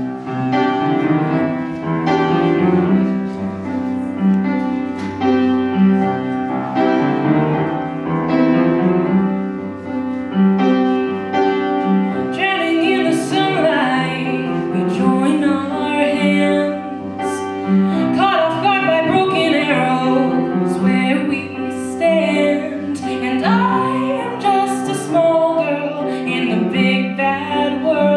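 A song performed live with piano accompaniment. The piano plays alone at first, and a woman's singing voice comes in about halfway through.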